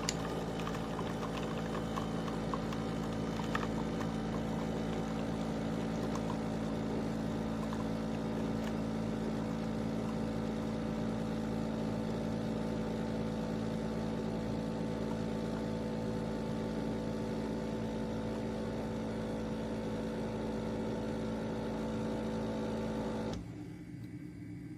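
De'Longhi Rivelia automatic espresso machine running with a steady hum and some light ticking early on, cutting off suddenly near the end.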